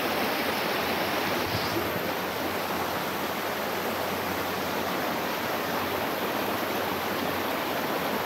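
River water rushing and flowing steadily.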